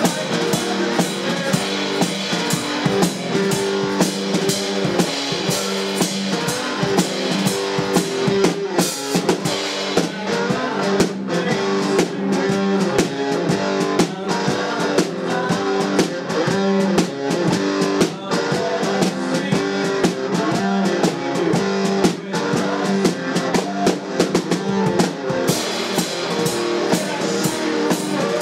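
Live garage blues-rock band playing: distorted-free electric guitar and a drum kit keeping a steady rock beat with bass drum and snare. The cymbal shimmer drops back about nine seconds in and comes back near the end.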